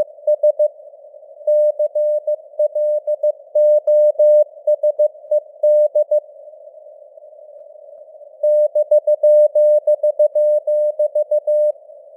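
Morse code at 15 words per minute: a single steady beep keyed on and off in dots and dashes over a narrow band of simulated radio hiss. The keying pauses for about two seconds midway, leaving only the hiss, then resumes.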